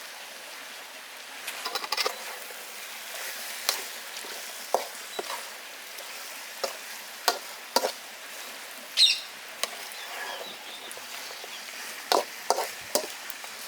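Marinated chicken frying in a kadai of onion-tomato masala, a steady sizzle under a spatula scraping and knocking against the pan as it is stirred, the clicks coming irregularly every second or so.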